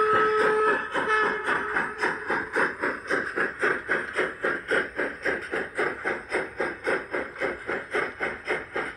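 Model BR 50 steam locomotive's sound system: a steam whistle ends about a second in, with a short second toot, then a steady steam chuff at about three beats a second as the engine runs.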